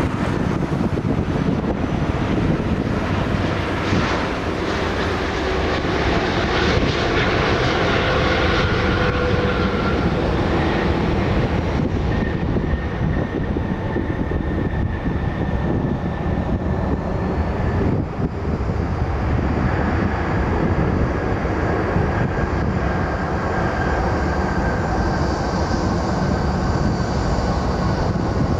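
Airbus A330-300's Rolls-Royce Trent 700 jet engines during the landing roll after touchdown: a steady, loud rumble with a thin whine that drifts slowly down in pitch. The sound turns duller about halfway through as the airliner moves away down the runway.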